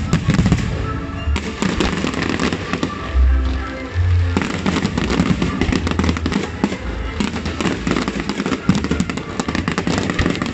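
Aerial fireworks shells bursting and crackling, many sharp bangs in quick succession, with music playing underneath.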